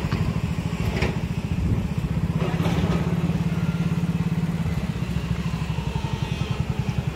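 Small commuter motorcycle engine idling with a steady, fast low putter, the bike held at the top of a steep, loose stony slope. A couple of brief clatters come about one second and about three seconds in.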